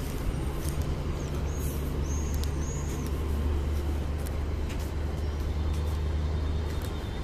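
Steady low rumble of street traffic, with a few short high chirps between about one and three seconds in.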